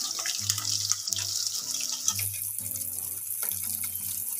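Katla fish pieces frying in hot mustard oil, a steady sizzle with frequent crackles, and now and then a metal spatula knocking and scraping in the pan as the pieces are turned. Background music plays underneath.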